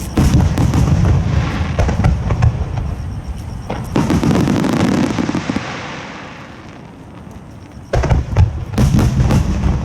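Large aerial fireworks shells (No. 10, about 30 cm) bursting overhead, each a deep boom with a long echoing rumble. Several booms come in quick succession at the start, a strong burst follows about four seconds in, and after a short lull more booms come near the end.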